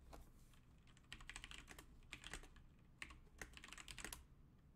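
Faint typing on a computer keyboard: several quick runs of keystrokes with short pauses between them.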